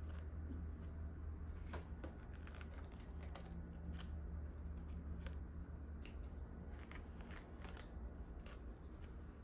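Trading cards and their plastic sleeves being handled, shuffled and set down: scattered light clicks and taps at irregular intervals, over a steady low hum.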